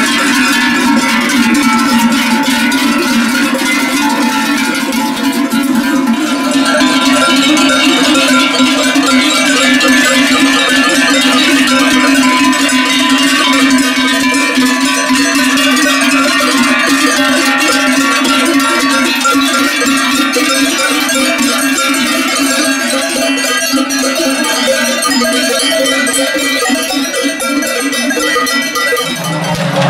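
Many cowbells worn by a herd of cattle, clanging together continuously as the herd moves.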